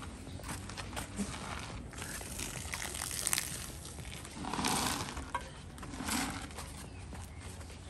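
Gravel and small rocks rattling inside a plastic coolant expansion tank as it is shaken with water and detergent, scouring debris off its walls, with dirty water pouring out of the tank part way through.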